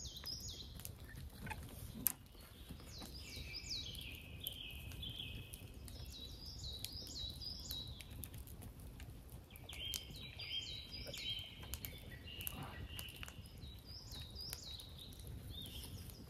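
Songbirds singing: repeated phrases of quick, high chirps through the whole stretch, over a low rumble, with one sharp click about two seconds in.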